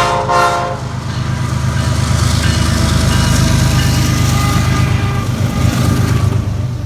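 A train horn ends a blast of several tones together in the first second, then a train's heavy, steady low rumble carries on.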